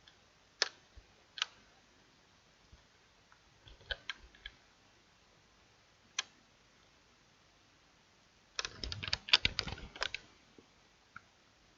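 Clicks from a computer keyboard and mouse: a few single clicks, then a quick run of keystrokes lasting about a second and a half near the end.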